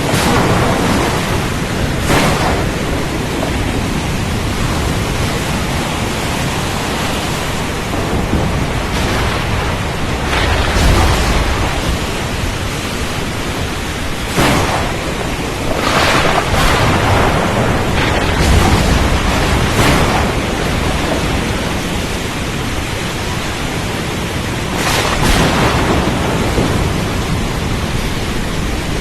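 Thunderstorm over the sea: a continuous hiss of rain and wind, broken by several rumbles of thunder and sudden surges of noise.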